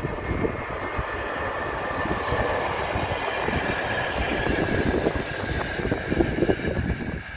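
Electric-locomotive-hauled passenger train passing: a steady rumble of coach wheels on the track with irregular clicks over the rail joints, dropping away near the end as the last coach goes by.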